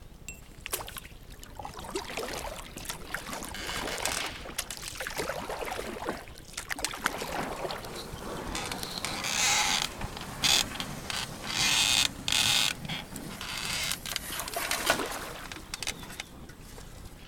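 A small rowboat being rowed, with the oars dipping and splashing and knocks and creaks from the oarlocks.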